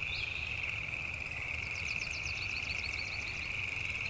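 Rainforest chorus of calling frogs and insects: a steady high-pitched drone, with a few short chirps near the start and a quick series of clicking calls about two seconds in.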